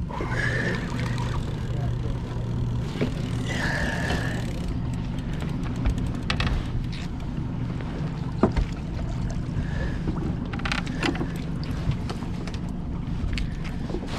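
Boat's Yamaha 150 outboard motor running steadily at idle. A few sharp knocks of fishing gear against the aluminium hull come in the second half.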